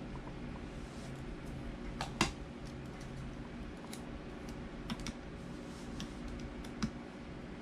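Scattered small clicks and taps of hands handling small hard parts during a laptop SSD install, the loudest about two seconds in, over a steady low hum.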